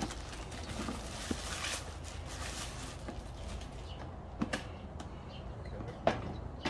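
Plastic bag crinkling as it is pulled off a hard plastic stove carrying case, followed by a couple of sharp clicks as the case is handled.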